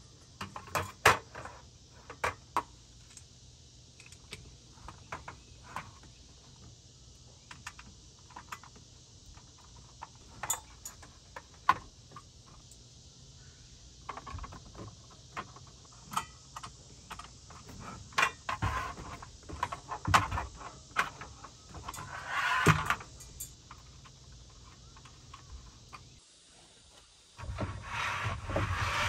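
Irregular clicks, knocks and light rattles, like small hardware or tools being handled, busier in the middle; near the end a cut to a louder steady rumbling noise.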